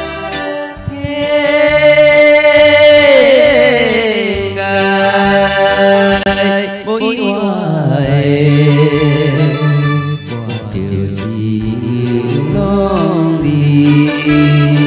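A song playing: a melody line with strong vibrato and sliding pitch over a steady backing accompaniment.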